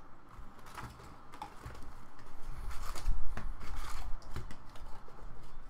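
Hands opening a cardboard trading-card hobby box: scattered taps, scrapes and light rustling of the cardboard lid and the packs inside.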